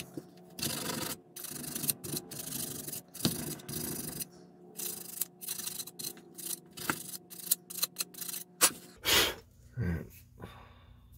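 A sanding sponge rubbed against a small model part in short, irregular strokes, with brief pauses between runs. Near the end the sanding stops, and a few louder handling scrapes follow.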